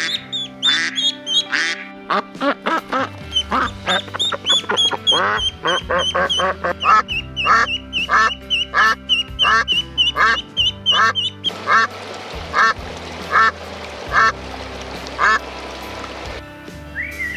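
Mallard ducklings peeping rapidly and a mallard quacking in a steady series, about one and a half quacks a second; the peeping stops about two-thirds of the way through while the quacking goes on. Background music plays underneath.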